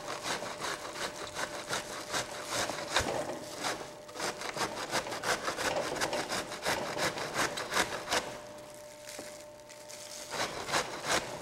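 Cauliflower being grated by hand into cauliflower rice, in quick, even back-and-forth strokes. The strokes ease off about eight seconds in and start again near the end.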